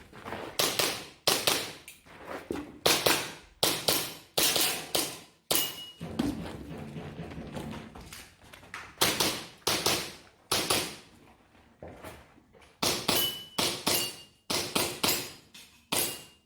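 An airsoft pistol firing a course of fire, about twenty sharp shots in quick strings, with a break of about three seconds a third of the way through. A few shots are followed by a short high ring of pellets striking steel targets.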